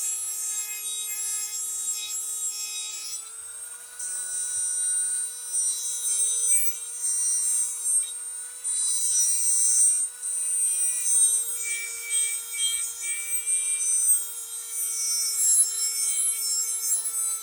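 Dremel rotary tool running at high speed with a steady whine that steps up slightly about three seconds in. Its bit grinds a steel lawn mower blade's edge, and the grinding hiss comes and goes with each pass.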